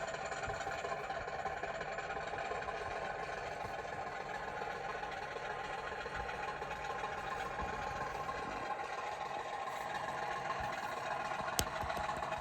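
Model Class 50 diesel locomotive's sound decoder playing the engine running, heard through the model's own speaker as a steady mechanical drone with no let-up. A single sharp click comes near the end.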